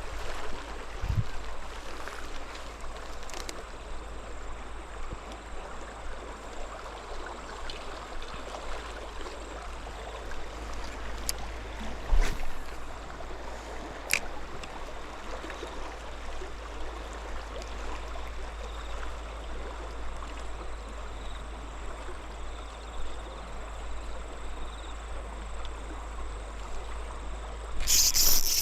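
River water flowing and trickling as a steady rush, with a few faint clicks and a brief louder burst of noise near the end.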